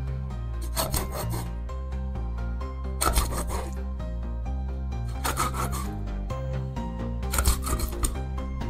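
Chef's knife sawing through the scaly skin of a large fish on a wooden cutting board, scoring slits: rasping strokes in four short bouts about two seconds apart. Background music plays underneath.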